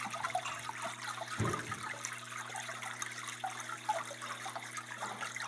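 Water trickling and splashing over pebbles, with a faint steady low hum underneath.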